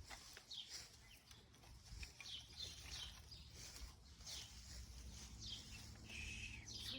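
Faint bird chirping: a run of short, high, downward-slurred chirps repeating every fraction of a second. A faint steady low hum comes in over the second half.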